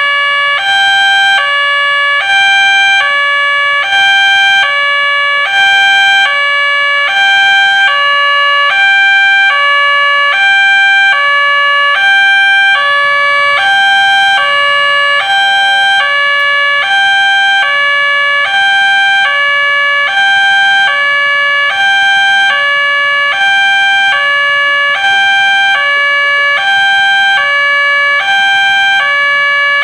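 Railway level-crossing warning siren from the horn loudspeaker of a Nataya Putra crossing barrier, sounding without a break as a two-tone siren that alternates between a higher and a lower pitch. It is the crossing's alarm, warning that a train is approaching.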